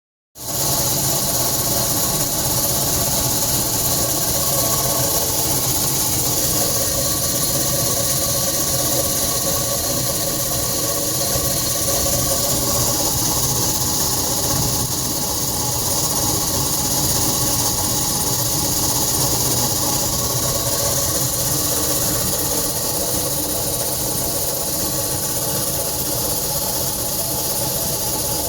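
Air conditioner running with a loud, steady noise: a strong hiss over a low hum with faint steady tones. A contractor put the noise down to the unit's motor.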